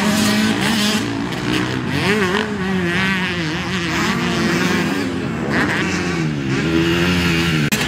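Motocross bike engines racing, the pitch rising and falling over and over as the throttle opens and closes through the gears. The sound dips out for a moment near the end.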